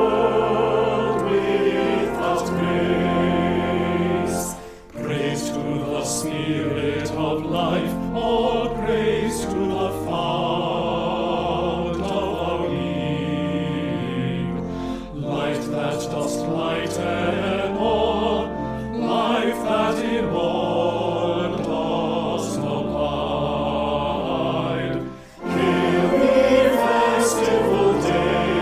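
Choir singing a hymn in parts, with vibrato over held low notes; the singing breaks briefly between phrases about five seconds in and again near twenty-five seconds.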